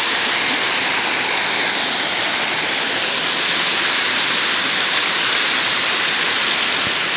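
Waterfall rushing close by: a steady, even hiss of falling water that does not change.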